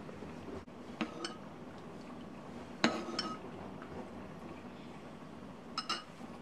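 Ceramic soup spoon clinking against a ceramic soup bowl: a few light, ringing clinks, some in quick pairs, the loudest about three seconds in.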